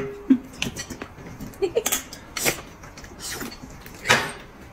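Eating sounds from a person biting and chewing a whole roast chicken held in the hands: wet mouth smacks and small clicks, with a louder breathy noise about four seconds in.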